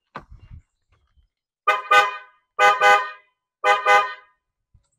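Newly installed JDM Subaru triple horn (three horns tuned 400, 500 and 600 Hz) sounding a loud multi-tone chord in three short double honks about a second apart. A few soft knocks come just before.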